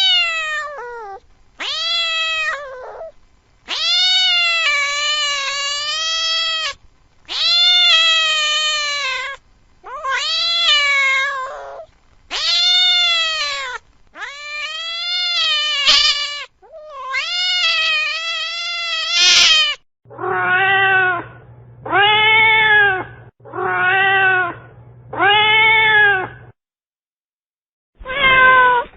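A cat giving a long series of loud, drawn-out yowls, each arching up and falling in pitch, typical of a frightened or aggressive cat. About two-thirds of the way through, the yowls drop lower in pitch and a steady low hum runs beneath them.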